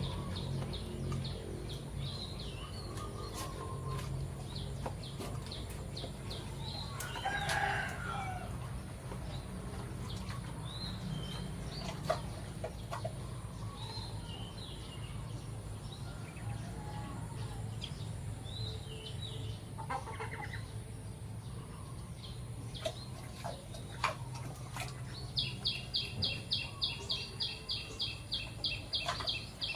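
Farmyard chickens clucking and calling, with a rooster crowing about seven seconds in. From about 25 seconds in there is a rapid, high repeated chirping at about four a second. A low steady hum runs underneath.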